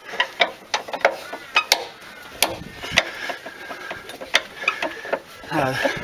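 Scissor jack being wound down with its crank handle to lower the car: a run of irregular metallic clicks and knocks from the turning handle and jack screw.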